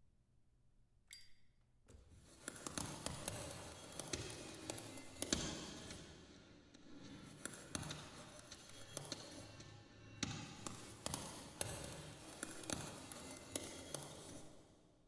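Small percussion objects handled at a table: a short ringing ping about a second in, then dense, irregular tapping and clicking from about two seconds in that stops just before the end.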